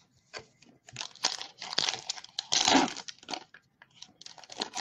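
Foil wrapper of a Bowman baseball card pack being torn open and crinkled by hand. It gives a burst of crackling that is loudest in the middle, then a few scattered crinkles.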